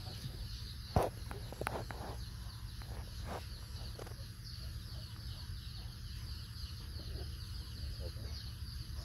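Outdoor background noise with faint bird calls high up, and a sharp click about a second in followed by a few softer ticks.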